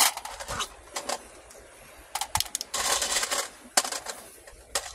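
Irregular run of sharp clicks and clattering knocks, as of small hard objects striking each other, with a short rush of hiss about three seconds in.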